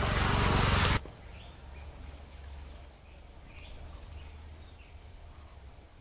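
A loud rushing noise that cuts off abruptly about a second in. After it, a few faint high bird chirps come roughly a second apart over a low, soft rumble of outdoor background.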